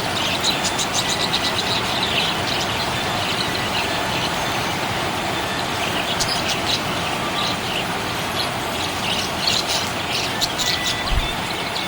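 Small pet parrots chirping in quick high bursts, in clusters with short gaps, over a steady background hiss.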